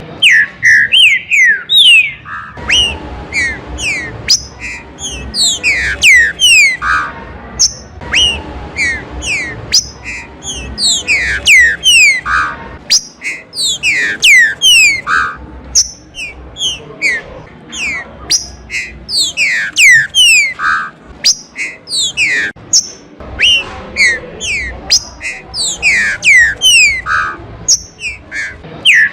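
Green-winged saltators (trinca-ferro) singing: loud, clear whistled phrases of quick falling notes, repeated one after another without pause.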